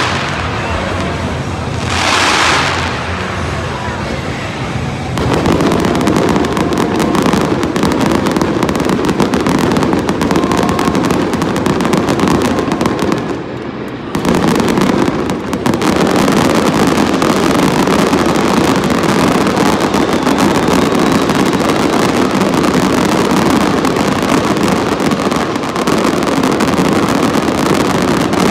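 Fireworks display: from about five seconds in, a dense, continuous barrage of rapid bangs and crackling, with a brief lull a little before halfway.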